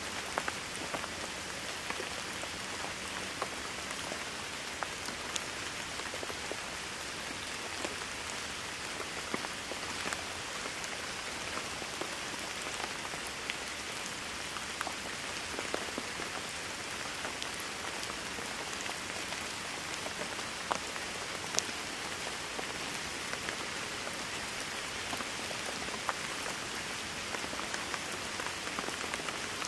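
Steady rain falling on a hard surface, an even hiss with many individual drops ticking.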